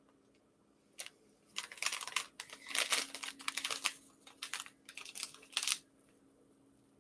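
Plastic packet of sesame seeds crinkling and rustling in a string of short bursts as it is handled.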